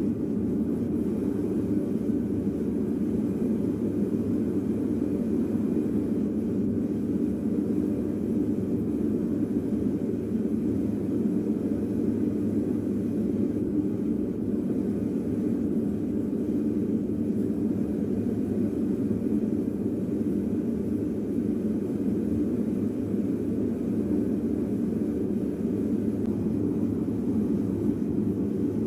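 Gas-fired melting furnace burner running with a steady, even rush while it heats a crucible of copper pipe pieces to melt them.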